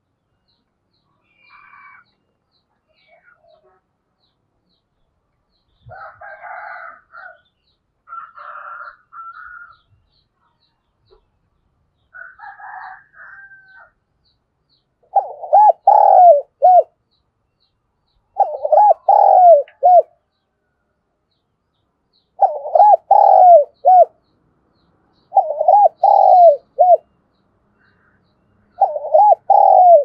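Spotted dove (cu gáy) decoy bird cooing: in the second half, five loud coo phrases about three seconds apart, each a short run of several notes. Fainter bird calls come before them.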